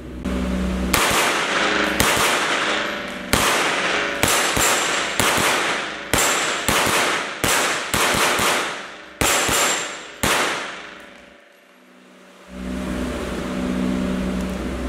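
ADC 9mm pistol-caliber competition carbine firing a fast string of about fifteen shots, roughly two a second, each echoing in an indoor range. The echoes die away and a steady low hum returns near the end.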